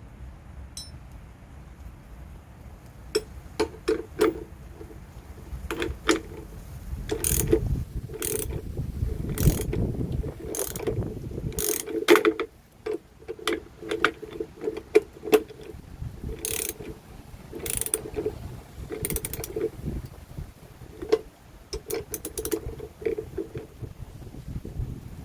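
Irregular mechanical clicks and rattles in short clusters, with a louder low rumble about seven to twelve seconds in.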